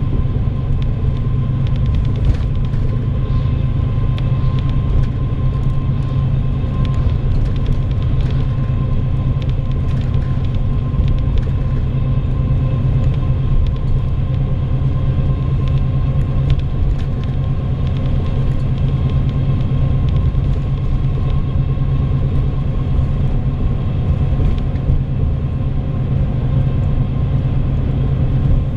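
Bus running at steady speed, heard from inside the cabin: a constant low engine and road drone with a thin steady whine and occasional small rattles.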